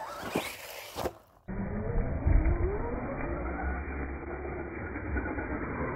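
Traxxas Stampede 4x4 VXL radio-controlled truck's brushless electric motor and drivetrain running as it drives over grass, with two sharp knocks in the first second. After a cut about a second and a half in, the sound turns muffled and deep, with a slowly rising whine.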